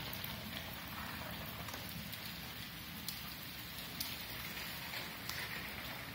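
Heavy rain falling steadily on a wet, puddled concrete driveway and lawn, an even hiss with a few sharper drop ticks.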